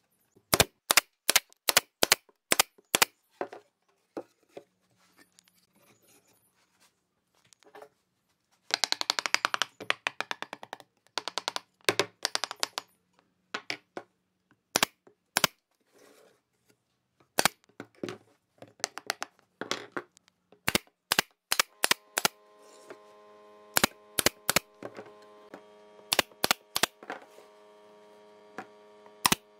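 Pneumatic nail gun firing single shots one after another, driving nails into pine and plywood boards of a drawer box. A few seconds of rapid snaps run together in the middle, and a steady hum of several tones comes in for the last third.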